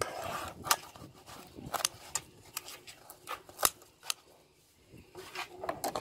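Metal tongs and kitchen scissors clicking and scraping against a metal pizza pan as the cut pizza slices are separated: a run of sharp, irregular clicks, the loudest about three and a half seconds in, with a quieter lull shortly after.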